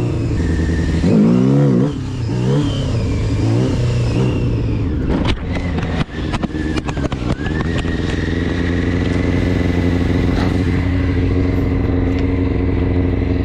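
Motorcycle engine revved in several quick throttle blips, rising and falling, to pop the front wheel up for a wheelie. About five seconds in comes a burst of knocks and clatter, and then the engine settles to a steady idle.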